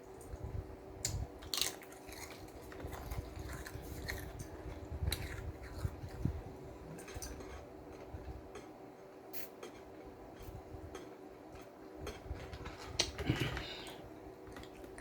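Close-up chewing and biting of a BLT sandwich with bacon: irregular crisp crunches and sharp mouth clicks between stretches of softer chewing, with a louder burst of crunching near the end.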